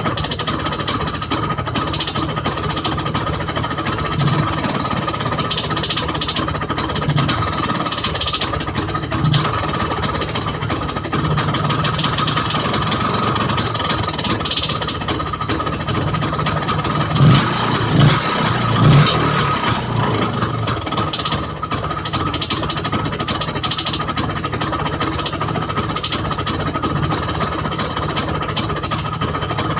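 IZh Planeta motorcycle's single-cylinder two-stroke engine running steadily, with a knock in the engine. It swells louder three times in quick succession a little past the middle.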